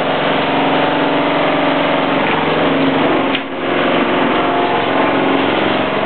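Built-in front-loading washing machine running: a loud, steady mechanical hum that dips briefly about three and a half seconds in.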